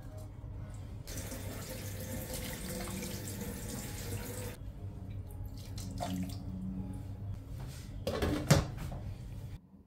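Water pouring into a stainless steel pot of raw chicken for about three and a half seconds, then a glass pot lid set down on the pot with a short clatter about eight seconds in.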